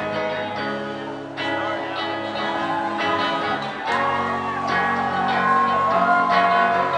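Reggae band playing live, full band with guitar, and a held, sliding melody line coming in about four seconds in as the music grows slightly louder.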